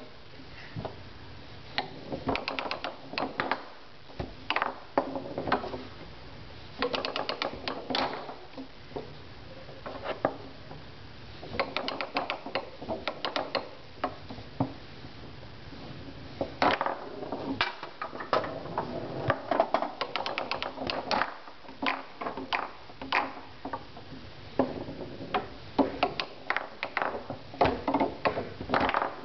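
Foosball play on a Tornado table: quick clicks and clacks of the ball being passed and trapped by the plastic men, with the rods knocking, coming in bursts with short pauses.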